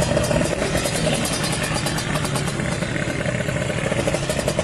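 Kawasaki Ninja R drag bike's two-stroke engine running steadily, not revved.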